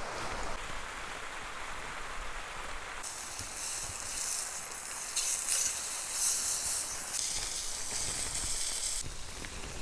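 Pork neck steak sizzling in a small camping frying pan on a gas stove: a loud, hissing sizzle starts about three seconds in as the meat goes into the hot pan, and drops away shortly before the end. Before that, a steady hiss of heavy rain on the tent.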